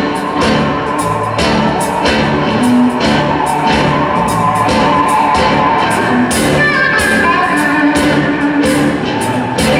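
Live electric blues band playing: electric guitars with sustained lead lines over bass guitar and a steady drum beat.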